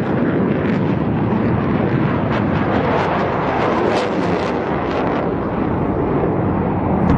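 JF-17 Thunder fighter's single RD-93 turbofan engine at full power on takeoff: a loud, steady jet rumble with a hissing top.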